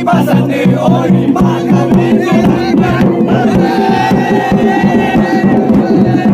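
Music with a quick, steady drum beat under a held, sung or played melody line.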